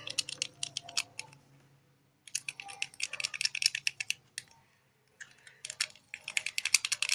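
A stirring stick clicking rapidly against the side of a container as slime mixture is stirred, in three quick bursts of about ten clicks a second with short pauses between.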